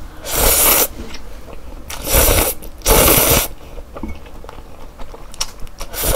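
Slurping of stir-fried instant noodles sucked up off chopsticks: three loud slurps, each about half a second, in the first three and a half seconds, and a shorter one near the end.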